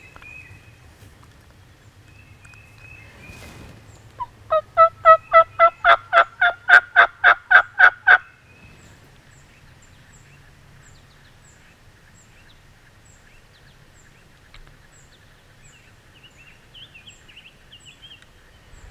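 Turkey call run in a series of about fourteen hen yelps over four seconds, quickly getting louder and slightly higher: a hunter calling to a gobbler.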